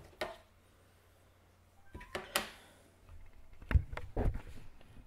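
Handling noise: a few sharp clicks and knocks with some rustling, the loudest a heavy thump about four seconds in, as recording gear is reached for and handled.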